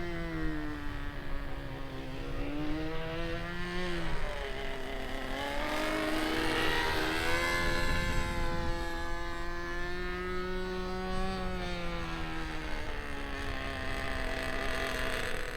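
Small SH GF6 .37 glow-ignition gas engine of a radio-controlled model plane running in flight. Its tone dips, climbs and sweeps up and down, swelling to a rushing peak about halfway through.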